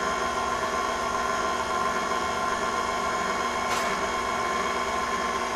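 KitchenAid tilt-head stand mixer running steadily, its motor humming evenly as the beater mixes banana bread batter in the steel bowl.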